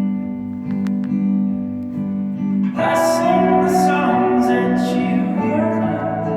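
Indie folk band playing live: guitar chords ring, then about three seconds in the fuller band comes in, with a brighter, busier sound and some singing.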